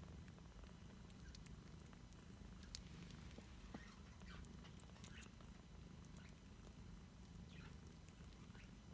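Very faint, low, steady purring of a two-week-old tuxedo kitten, with a few faint scattered clicks.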